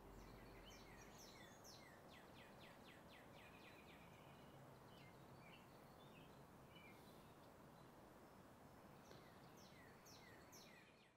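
Faint outdoor ambience with small birds chirping: a quick run of short, falling chirps in the first few seconds and again near the end, over a steady low hiss. The sound cuts off abruptly at the end.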